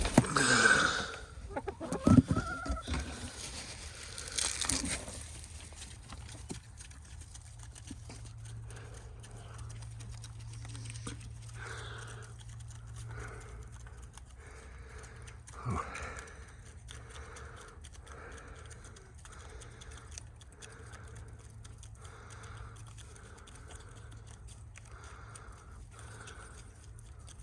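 Domestic hens clucking, with a few louder calls in the first seconds, then a long, steady run of short clucks about one a second.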